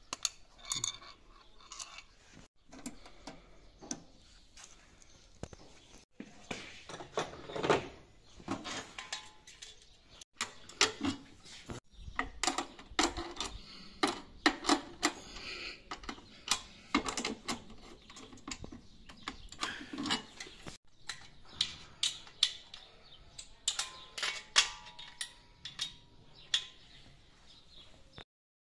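Irregular metallic clinks, taps and knocks of hand tools and metal parts being handled: a spanner and the white steel wall-mount brackets and fittings of an air-conditioner outdoor unit, with its rubber anti-vibration feet being bolted on.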